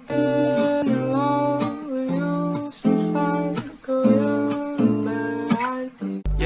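Background music: a soft acoustic guitar song, strummed and picked, with a melody moving over it. Just before the end it cuts abruptly to a different track with heavy bass.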